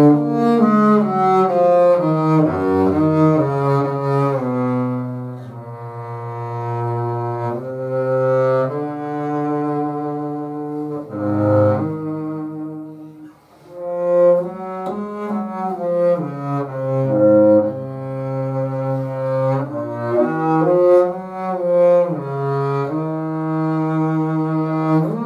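Solo double bass played with the bow, a slow melancholy melody in a minor key with long held notes. The playing breaks off briefly about thirteen seconds in, then resumes.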